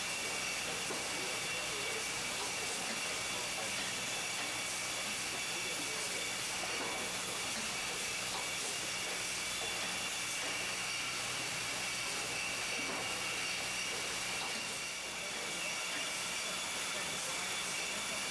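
Wine box cartoning machine and its conveyors running: a steady hiss over a low machine hum.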